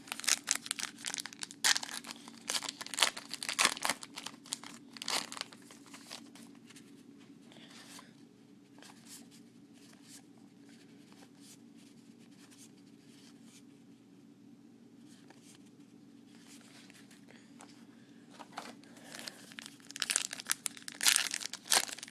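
Crinkling and tearing of trading-card pack wrappers being handled, in dense crackly bursts for the first several seconds and again near the end, with a quieter stretch between. A steady low hum runs underneath.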